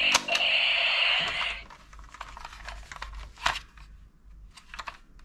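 Plastic clicks and rattles of a toy pistol being handled, with a steady high buzzing tone under the clicks that stops about a second and a half in. After that, only scattered fainter clicks remain.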